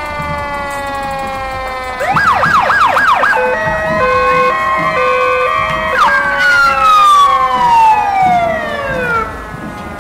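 Emergency vehicle sirens sounding loudly in several patterns: a slowly falling wail, a fast yelp about two seconds in, then an alternating two-note hi-lo, and about six seconds in a quick rise followed by a long falling wind-down.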